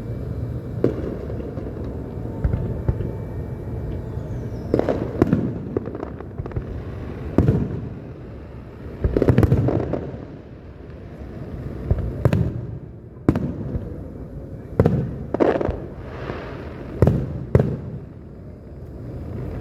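Fireworks display: aerial shells bursting one after another with sharp bangs and booms over a steady low rumble, with a dense flurry of bursts about nine seconds in.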